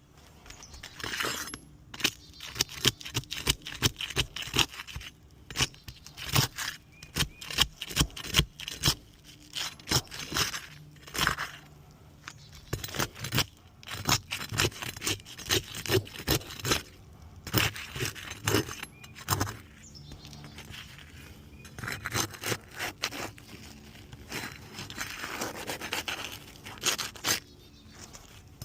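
Irregular scraping, crackling and clicking of asphalt roof shingles being pried up and handled; the shingles are tearing and have lost their granules.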